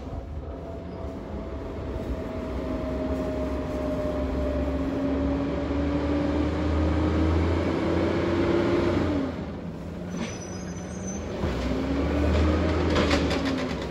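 LNG-fuelled side-loading garbage truck's engine pulling under load, its pitch climbing steadily. About nine seconds in it eases off and a short high squeal sounds, then the engine pulls and rises again near the end.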